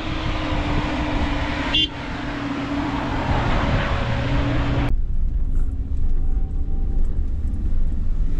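Camper van driving up a rough gravel mountain road: engine hum, tyre and road noise, with wind on the microphone. The sound changes abruptly twice, about two and five seconds in, becoming duller after the second change.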